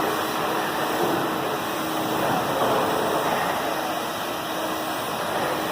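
Ruwac R211H HEPA industrial vacuum running steadily, drawing air through two drywall sanders at once: an even rushing hiss with a faint steady hum underneath.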